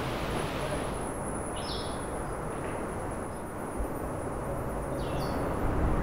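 Steady road and engine noise of a vehicle driving on a rough gravel mountain road, heard from inside the cabin, with a short high chirp about two seconds in and another near the end.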